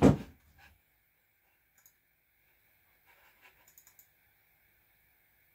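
A dull thump at the very start, then a few small, quiet clicks of a wireless computer mouse as a laptop is woken, over a faint steady high hum.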